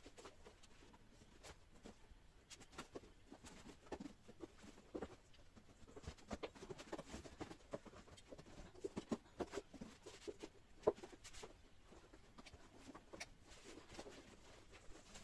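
Faint, irregular knocks, taps and scuffs of shoes being handled and set down on the shelves of a shoe rack. The loudest knock comes about eleven seconds in.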